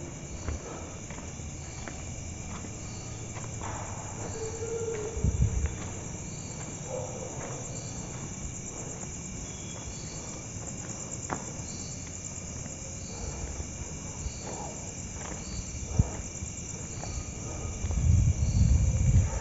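Crickets chirping at night, a high chirp repeating evenly about once a second over a steady background. There is a dull thump about five seconds in and a low rumble near the end.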